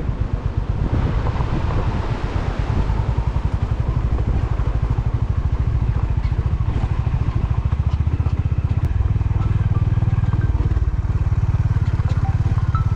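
Royal Enfield motorcycle engine running as the bike rides on, a fast, even pulsing thump that grows a little stronger about eight seconds in.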